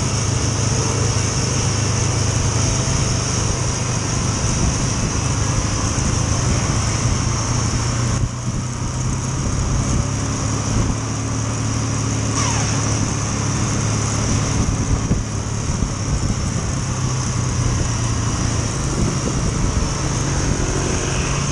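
Motor scooter engine running steadily while riding, under an even rushing noise. A brief falling tone sounds about twelve seconds in.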